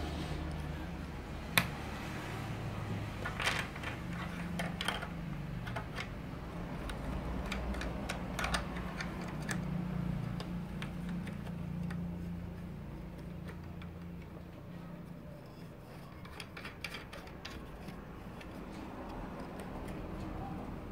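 Scattered sharp plastic clicks and handling knocks from a suction-cup phone mount with a flexible gooseneck arm being handled and bent, the loudest click about a second and a half in, over a low steady hum.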